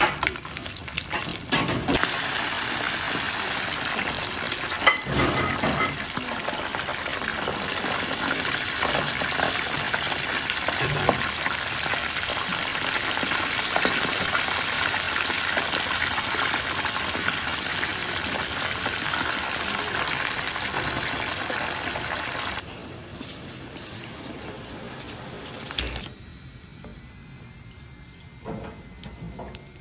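A spiny porcupine pufferfish skin deep-frying in hot oil, with a steady loud sizzle and hiss of bubbling oil. About three-quarters through, the sizzle drops off sharply to a much quieter sound, with a few light clicks near the end.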